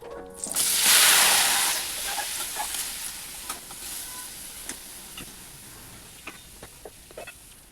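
Hot oil tempering (tadka) sizzling loudly as something is added to it, the hiss fading slowly over several seconds with scattered crackling pops.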